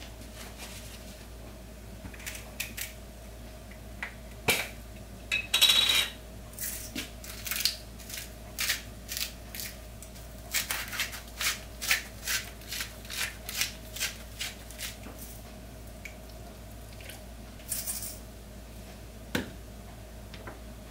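Hand-turned spice grinder cracking grains in a long run of short crunching turns, about two a second, as the fish is seasoned. A sharp knock comes twice, once before and once after the grinding.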